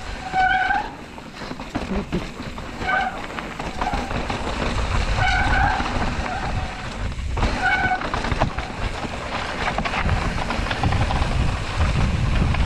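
Mountain bike disc brakes squealing in four short bursts about two and a half seconds apart, over the steady rumble of tyres rolling on a dirt trail.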